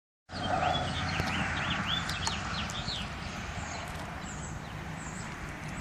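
A songbird singing a quick run of short, arched whistled notes for the first three seconds, over a steady low outdoor rumble, with a few light clicks.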